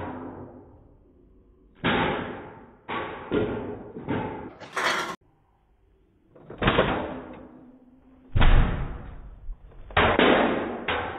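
A series of sharp bangs and knocks, each dying away over about half a second, with a brief silence about five seconds in and the loudest bang a little after eight seconds.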